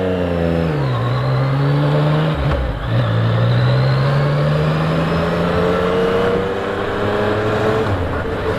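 Yamaha MT-09's three-cylinder engine accelerating away from a stop and shifting up through the gears. Its pitch climbs, then drops at a shift about a second in, again about two and a half seconds in, and near the end. Wind noise rushes over the helmet microphone throughout.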